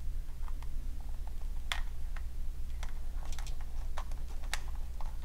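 Small screwdriver driving screws into a toy car's plastic chassis, with scattered, irregular light clicks and taps of metal on plastic over a low steady hum.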